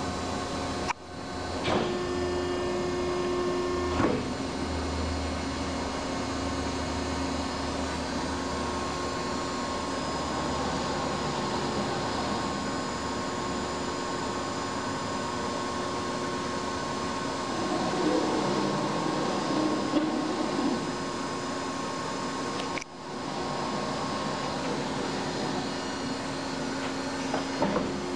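Durma HAP 30160 175-ton CNC hydraulic press brake running: a steady machine hum with a few sharp clicks, and a low drone during the first several seconds.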